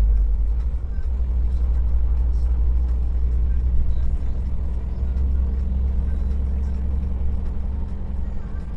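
Heavy truck's diesel engine running steadily at low revs under load on a climb, a deep hum heard from inside the cab, with road noise.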